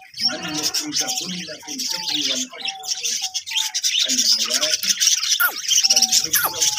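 Many caged birds chirping and twittering at once, with short lower calls repeating underneath.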